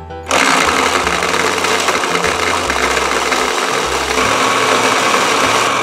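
Toy blender running with gumballs tumbling in its plastic jar: a steady whirring that starts about a quarter second in and stops near the end.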